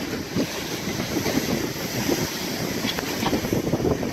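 Wind gusting on the microphone over the wash of the sea along a catamaran under sail.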